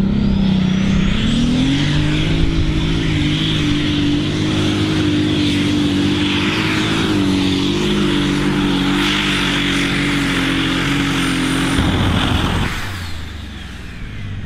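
Super Stock pulling tractor's turbocharged diesel engine at full power under heavy load as it pulls the sled. The revs climb about a second in and hold high, with a high turbo whistle rising at the start. The engine note falls away sharply near the end as the pull ends, the whistle dying down with it.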